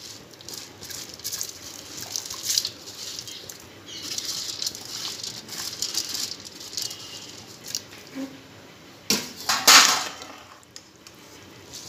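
Soaked lentils and rice tipped and pushed by hand from a bowl into a pot of boiling water, pattering and splashing in uneven bursts, loudest about nine seconds in.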